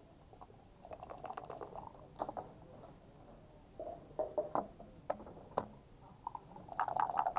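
Backgammon checkers and dice clicking and clattering against the board as pieces are moved: a cluster of clicks about a second in, a few sharp single clicks in the middle, and a denser run of clatters near the end.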